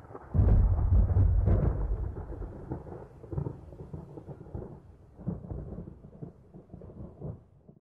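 Thunder: a sudden loud clap with sharp crackling about half a second in, then a deep rumble that rolls on and slowly fades, broken by a few lighter cracks, before cutting off near the end.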